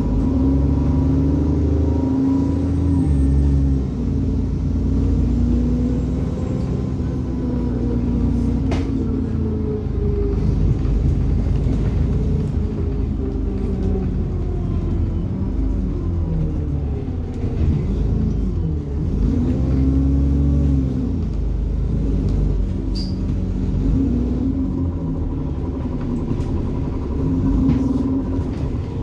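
ADL Enviro 400 double-decker bus engine pulling hard, its pitch rising and falling several times through the gear changes, with a steady turbo whine above it.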